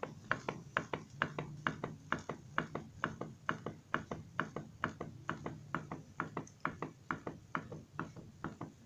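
Pop-pop boat engine running, its diaphragm popping in a fast, even rhythm of about four or five pops a second. The water inside is flashing to vapour and condensing back to liquid over and over, and each cycle flexes the diaphragm once.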